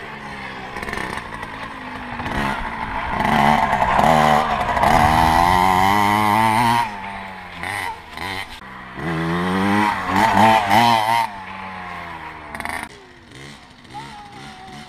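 Children's mini motorbike revving as it is ridden, its pitch rising and falling in two loud spells a few seconds apart, then dropping away quieter near the end.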